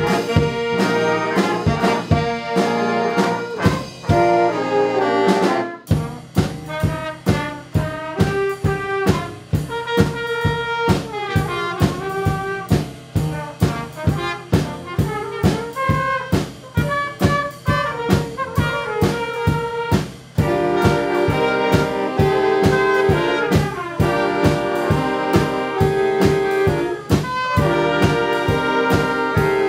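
A junior high school band plays a holiday tune led by brass horns. A steady drum beat and a bass line come in about six seconds in.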